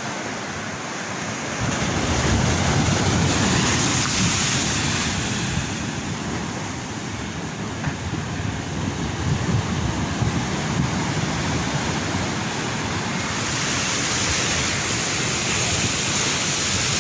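Sea waves breaking and washing over concrete breakwater tetrapods, a steady surf rush that swells louder a couple of seconds in and again near the end, with wind buffeting the microphone.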